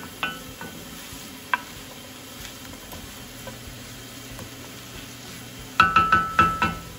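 Onions, carrots, parsnip and celery root sizzling in butter and bacon fat in a pan, with a few ringing knocks of a utensil against the pan as they are stirred. Near the end comes a quick run of about six knocks.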